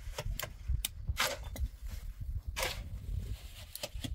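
Long-handled hoe scraping and dragging through a pile of wet cement mix on the ground: a series of short rasping strokes, the two loudest about a second and a half apart, over a steady low rumble.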